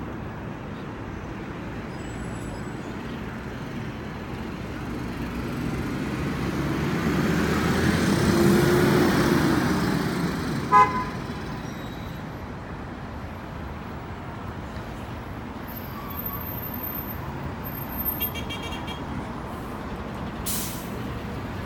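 Steady city road traffic, with one vehicle growing louder as it passes close about midway through. Just after it, one short car horn toot, the loudest sound, and a fainter high beep later on.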